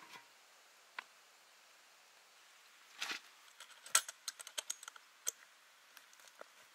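A short spade and soil working a small metal bucket: a knock at the start, a single click about a second in and a scrape about three seconds in. Then a quick run of light clinks and ticks as the full bucket is lifted by its handle.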